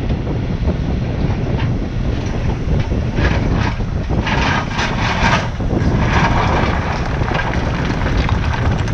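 Kubota KX-40 mini excavator's diesel engine running steadily under work, with bursts of rock scraping and grinding against the bucket in the middle.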